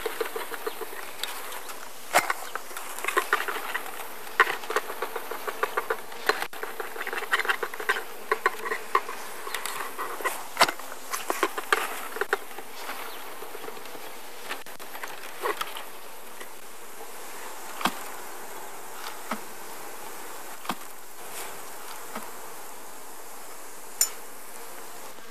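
A mass of honey bees buzzing in a steady hum, with repeated sharp knocks and taps as the bee package is bounced to shake the bees out into the hive. The knocks come thick in the first half and thin out to occasional taps after about thirteen seconds.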